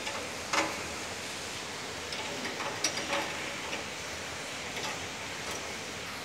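Irregular metallic clicks and taps of hand tools working on escalator machinery, the sharpest about half a second in and a cluster around two to three seconds, over a steady hiss.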